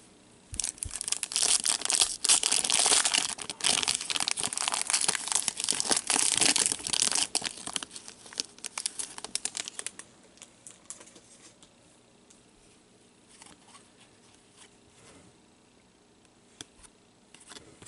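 Foil wrapper of a Panini Totally Certified hockey card pack being torn open and crinkled: a dense crackle for about seven seconds. After that come only faint clicks and slides as the cards are pulled out and fanned in gloved hands.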